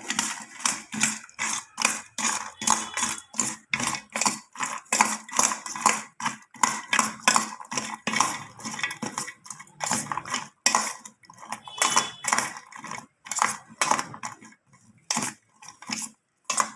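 Spoon mixing makhane chaat in a bowl: quick repeated clinks and scrapes against the bowl, a few a second, thinning out near the end.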